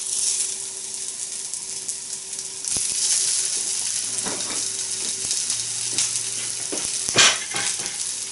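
Hash brown patties of grated potato and onion sizzling in hot oil in a frying pan. The sizzle starts as the first patty goes in and gets louder about three seconds in, when the second patty is added. A few light taps sound, the sharpest about seven seconds in.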